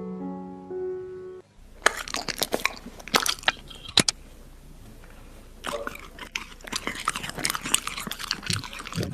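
A few piano notes, then a dog chewing French fries: irregular crisp crunches and bites, with a lull in the middle.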